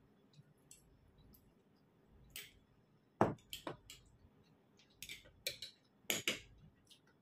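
A metal spoon clinking and scraping against a plate as rice is scooped up, in a handful of short, sharp clinks spread across the last few seconds.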